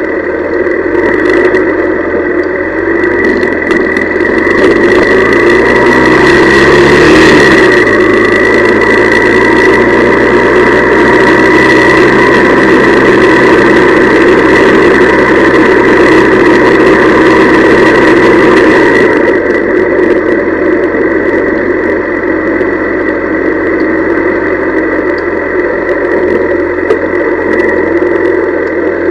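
Honda CL175's small four-stroke parallel-twin engine running under way. Its pitch climbs in steps over the first several seconds, holds steady, then falls about two-thirds of the way through as it eases off. A rushing hiss runs over the faster stretch.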